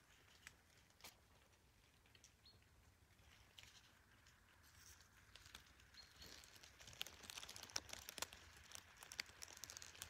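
Faint forest-floor ambience: scattered soft ticks and crackles that grow denser and louder from about seven seconds in.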